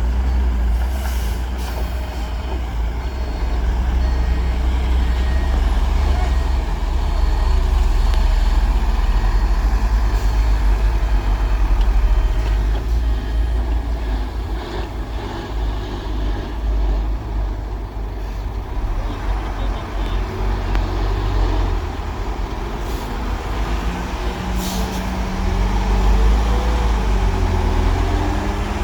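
Heavy diesel earthmoving machinery running under load: a deep steady engine rumble, with the engine note rising and wavering near the end and a couple of short hisses.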